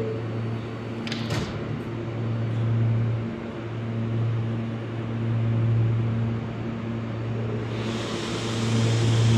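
R160 subway train standing in the station with a steady electrical hum, its doors closing with a short knock about a second in. A hiss comes up near the end.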